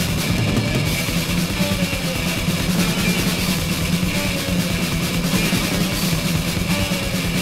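Death/thrash metal band playing: distorted electric guitar riffing over a drum kit at a steady, loud level.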